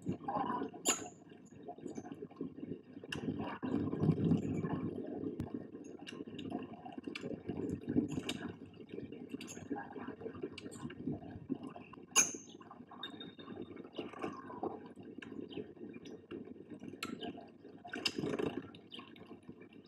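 Long-tailed tits bathing in a shallow bird bath: water splashing and dripping in short, irregular bursts as the birds dip and flutter, with the busiest splashing about four seconds in and again near the end.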